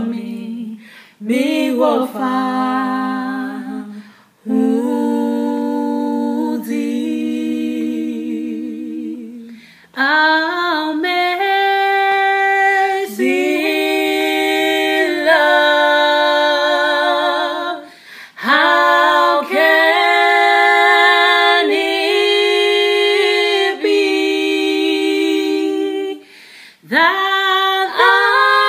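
Two women singing a worship song together unaccompanied, long held notes with vibrato in phrases broken by short pauses for breath.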